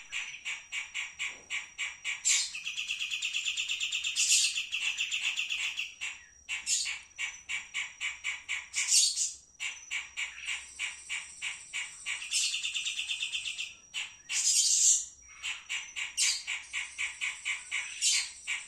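Songbird known in Indonesia as kapas tembak singing: a rapid string of high chirps, about five a second, broken by fast buzzy trills and several loud harsh calls.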